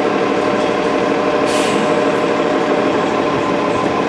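Steady running noise of a vehicle, with a short sharp hiss of air about a second and a half in.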